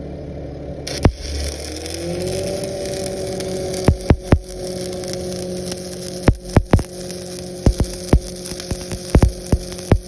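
Lincoln Frontier 400X engine-driven welder's diesel engine running, rising from a lower speed to a steady higher speed about two seconds in, with sharp, irregular cracks and pops over it.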